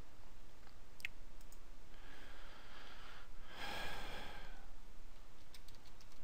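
A single mouse click about a second in, then two breaths close to the microphone, and a few computer-keyboard keystrokes near the end as a web address starts to be typed.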